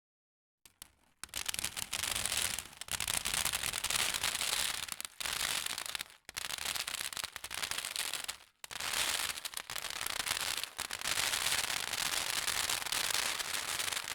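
Foley rain effect: a dense crackling patter of many tiny impacts, starting about a second in and running in several pours broken by short pauses.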